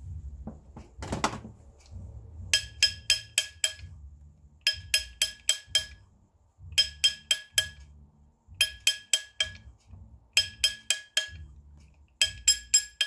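Hammer striking a metal ring to stretch it up a size, in bursts of about six quick ringing blows, roughly five a second, repeated every two seconds or so. A short rustle comes about a second in.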